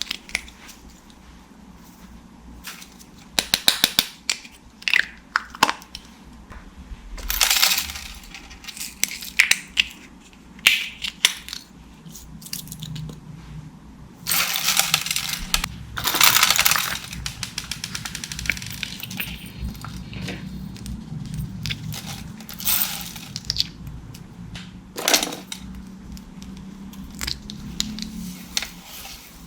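Glossy slime being squished, stretched and folded by hand, giving sharp crackling clicks and pops. There are longer wet crackling bursts about 4, 7 and 15 seconds in.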